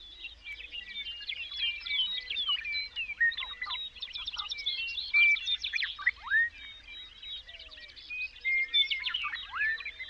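A dense chorus of many songbirds singing at once: overlapping chirps, quick trills and whistles, some sweeping down in pitch.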